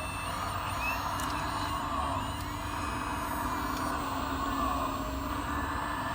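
Hydraulic system of a 1/14-scale RC excavator running: a steady pump hum and hiss, with a whine that dips and recovers in pitch several times as the valves load it.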